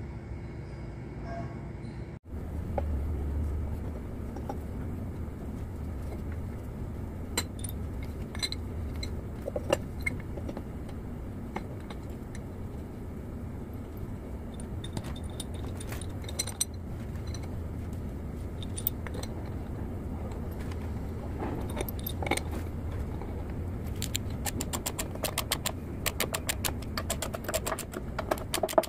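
Ratchet wrench clicking rapidly near the end as it turns a bolt on a crankshaft oil seal installer, pressing the seal into the housing of a Cat 3406 diesel engine. Before that, scattered metal clinks of the installer tool being handled over a steady low hum.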